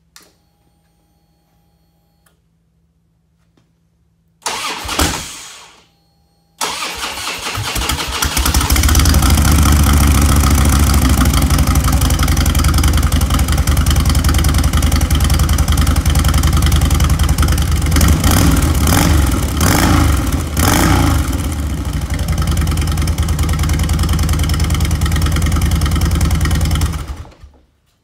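Cold start of a stock-exhaust 2006 Harley-Davidson Electra Glide's V-twin: a first try about four seconds in that does not catch, then the engine starts about two seconds later and runs steadily, uneven for a few seconds in the middle, until it is shut off shortly before the end.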